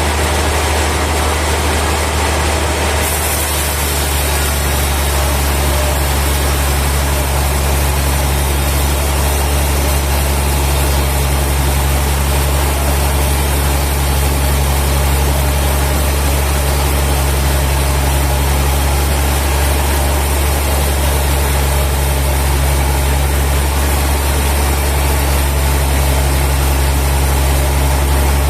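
Heavy sawmill machinery running steadily with a deep, even hum and a constant wash of noise over it. Its sound shifts slightly about three to four seconds in.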